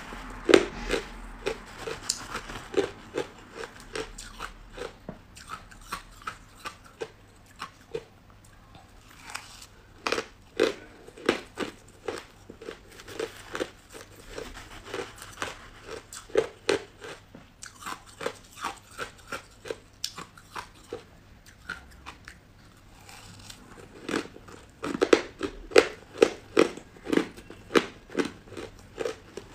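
Crushed ice crunched and chewed in the mouth: a steady run of sharp, hard crunches about two to three a second, easing off briefly about a third of the way in and again a few seconds before the end, loudest in a burst near the end.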